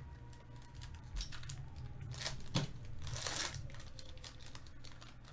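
Foil wrapper of a Panini Prizm baseball card pack being torn open and crinkled, in a run of short crackles. The loudest rip and rustle comes a little past halfway, as the wrapper is pulled off the cards.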